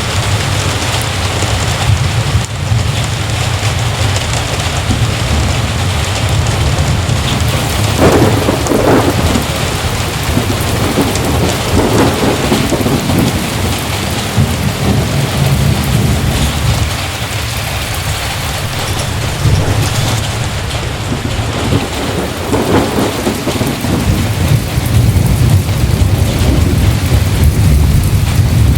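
Heavy rain falling steadily, with a continuous low rumble underneath that grows louder near the end.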